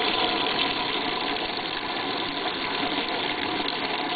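Washing machine's waterfall rinse: water pouring steadily into the tub, with the machine's steady hum underneath.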